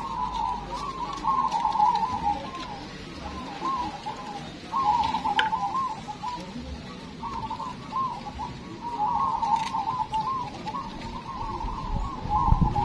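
A chorus of zebra doves cooing, many birds' rippling, bubbling calls overlapping almost without a break, thinning out briefly in the middle.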